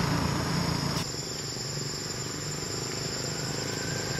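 Steady high-pitched drone of insects, with a low rumble underneath that cuts off about a second in.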